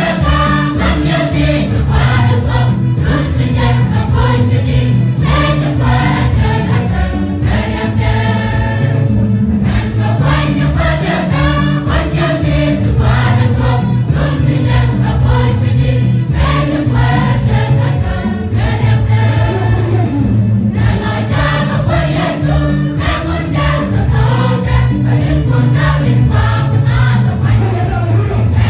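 Church choir singing a gospel song in parts, with keyboard accompaniment carrying a steady bass line underneath.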